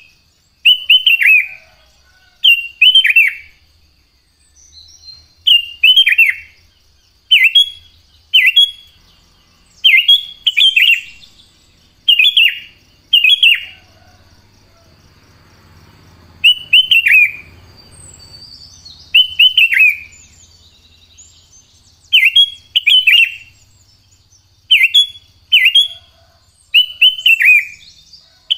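Sooty-headed bulbul (kutilang) singing: loud, short, bubbly phrases falling in pitch, mostly in pairs, repeated every second or two with a few longer pauses. A faint steady high trill runs underneath.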